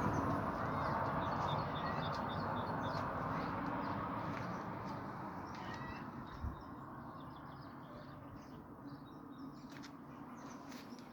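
Outdoor ambience: a broad rushing noise that slowly fades away, with faint bird chirps scattered through it and a single low thump about six seconds in.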